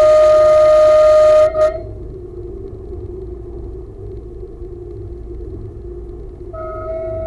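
Train horn sounding a long steady blast for a whistle board, heard from the driver's cab; it cuts off about one and a half seconds in, with a short extra toot just after. Under it the train runs on with a steady low rumble. About six and a half seconds in the same horn note starts again, much quieter, and holds.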